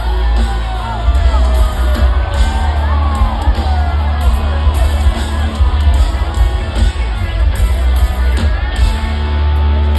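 Live country-rock band playing loud through a PA, with very heavy bass, singing and crowd noise.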